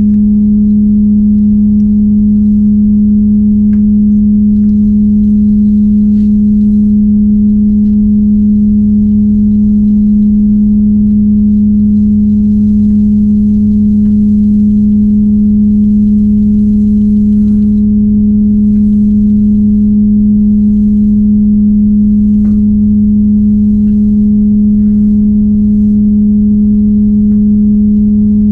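A loud, steady low hum on one unchanging pitch with overtones, over a low rumble, with a few faint clicks.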